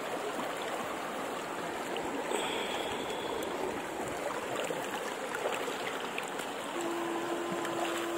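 Shallow river water running and trickling over stones in a steady rush. A steady hum comes in about seven seconds in and breaks up near the end.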